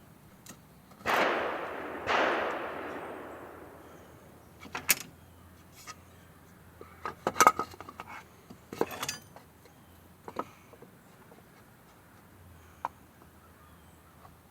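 Two gunshots about a second apart, each with a long fading echo, followed by a scatter of short clicks and knocks from clamps and the glued wooden box being handled.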